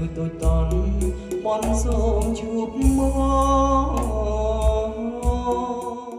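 A man singing karaoke into a wireless handheld microphone over a bass-heavy backing track, played through a JBL EON208P portable PA system with a JBL PRX815XLFW subwoofer. The music and voice fade out near the end.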